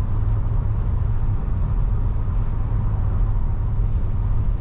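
Steady road noise inside a Toyota's cabin at highway speed: a low, even rumble of tyres and engine.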